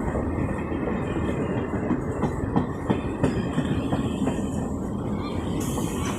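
A train running past on the rails with a steady low rumble, its wheels clacking irregularly over rail joints between about two and four and a half seconds in.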